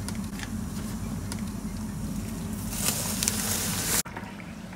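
Water boiling in a lidded stainless pot on a cooktop, bubbling steadily over a low hum. About three seconds in a louder hiss rises for about a second, then the sound drops suddenly to a quieter bubbling with a few light clicks.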